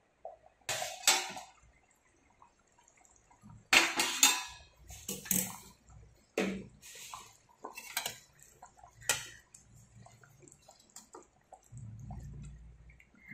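A metal ladle clinking and scraping against a stainless steel pot while stirring thick egg curry: a series of irregular sharp clinks with wet stirring sounds.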